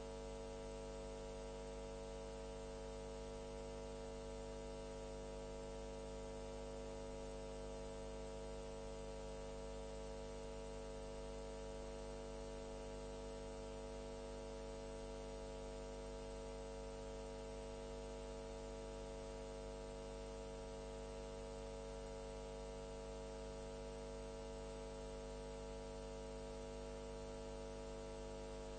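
Steady electrical hum with hiss: a stack of unchanging tones, strongest in the midrange, over a constant hiss that never varies.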